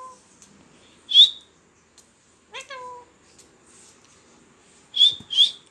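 Indian ringneck parrot calling: three short, loud, high-pitched shrieks, one about a second in and two close together near the end. Between them comes a short meow-like call that falls in pitch.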